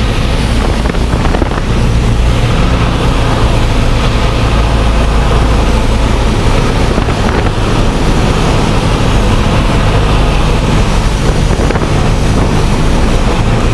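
Single-engine light aircraft's piston engine and propeller running steadily, heard inside the cockpit with wind noise, on final approach to landing.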